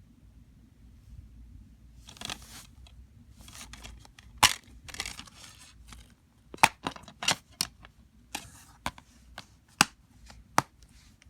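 Handling noise: rustling starting about two seconds in, then a string of sharp clicks, about eight in four seconds.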